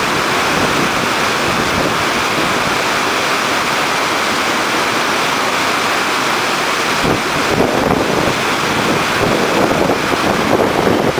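Loud, steady rush of white water pouring over a river weir and churning in the stopper wave below it.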